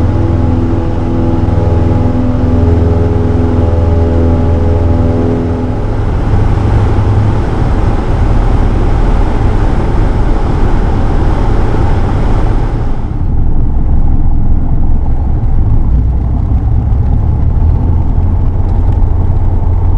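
Cabin noise of a single-engine piston light aircraft: a steady engine and propeller drone over a strong low hum. The steady tones give way to a rougher rumble about six seconds in, and the sound turns duller about thirteen seconds in.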